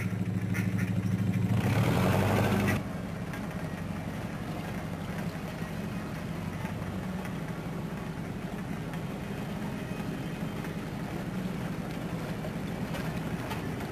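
Motor cruiser's inboard engine idling with a steady low hum, louder for about the first three seconds, then dropping suddenly to a quieter level.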